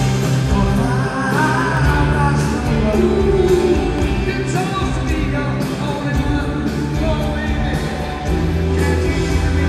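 Live rock band performing: a male lead vocalist singing over bass guitar, electric guitar and drums.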